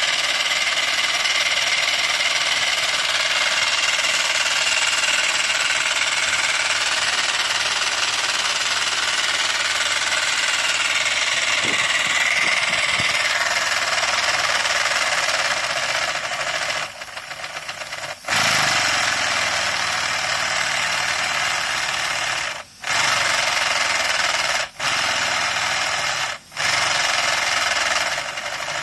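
Mamod SL3 16mm-scale model locomotive's oscillating cylinders running fast on compressed air with the wheels spinning freely, a rapid hissing chuff. In the second half the exhaust cuts out and restarts four times.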